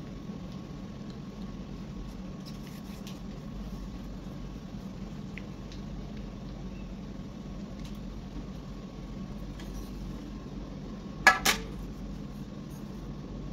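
Two sharp knocks close together, about eleven seconds in: a saucepan set down on a stone countertop. Before them only a steady low hum with a few faint small ticks.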